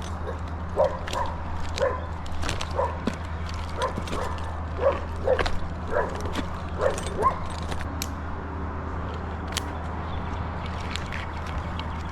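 A dog barking in short yips, about ten of them between one and seven seconds in, over a steady low hum with scattered sharp clicks.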